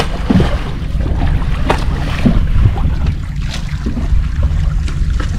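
Small fishing boat's engine running with a steady low rumble, with wind buffeting the microphone and a few sharp knocks.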